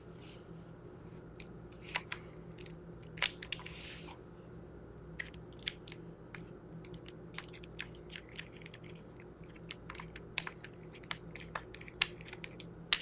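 Faint, irregular small clicks and ticks of a hand screwdriver turning the front grip frame screw out of a Nelspot 007 pump paintball marker, coming more often near the end. A brief soft rustle comes about four seconds in.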